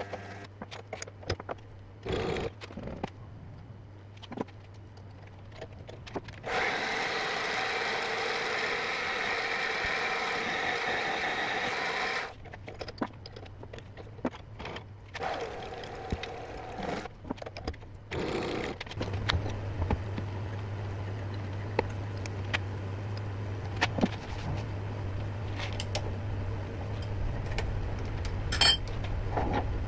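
Small machine tool drilling and reaming holes in a metal lathe tool holder: a steady motor hum with scattered clicks and knocks, and a louder whining stretch of cutting from about six to twelve seconds in.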